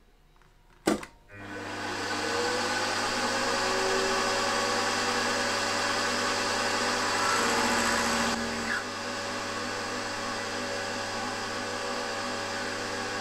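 A click about a second in, then a milling machine's spindle spins up and runs steadily while an end mill cuts a radius into an aluminium block.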